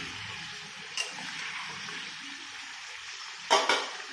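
Chicken and potatoes sizzling steadily in an open frying pan, with a small click about a second in and two sharp knocks in quick succession near the end.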